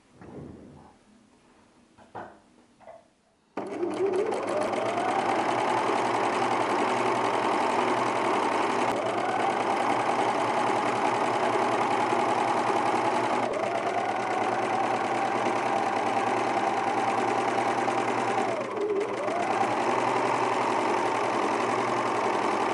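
Juki MO-2000 overlock (serger) starting about three and a half seconds in and sewing a narrow rolled hem on silk organza at speed, its motor whine rising as it comes up to speed and then running steadily. About 19 s in it slows briefly and speeds up again. Before it starts, a few brief handling sounds.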